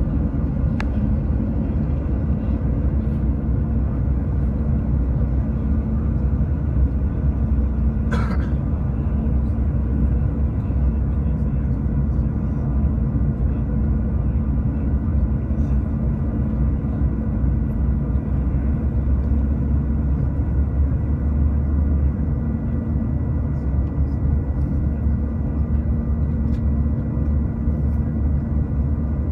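Airliner cabin noise: the jet engines and airflow make a steady low rumble, with a few faint steady tones above it. A brief rustle or click cuts in about eight seconds in.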